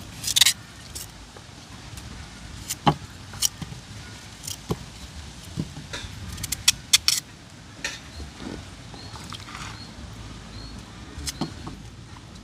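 Scattered, irregular clicks, knocks and light clinks of a knife and cooking utensils as vegetables and seasonings are cut up and handled, with a steady faint hiss underneath.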